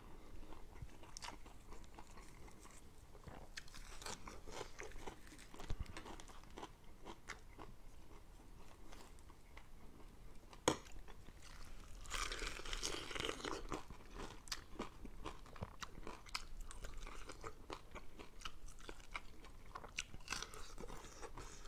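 A person biting and chewing a fried chicken drumstick close to a clip-on microphone: soft crunches and mouth sounds, with a louder stretch of crunching about twelve seconds in. A single sharp click comes just before it.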